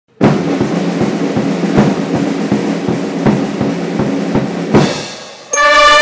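Military band: a sustained snare drum roll with steady drum beats about three a second, fading out just before five seconds in; then the brass comes in together on a held chord near the end.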